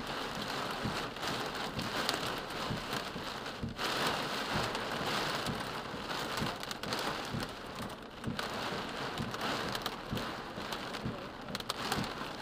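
Heavy rain and hail beating on a car's roof and windows, heard from inside the car: a dense wash of noise peppered with many sharp hits, swelling and easing in surges.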